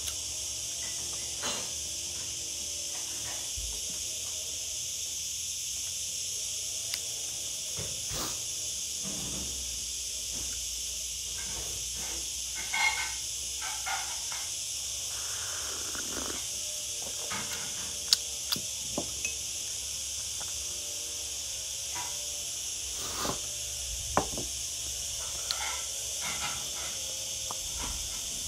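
Steady high-pitched hiss, with scattered small knocks and rustles and a short louder noisy sound about halfway through, around the moment she sips from a cup.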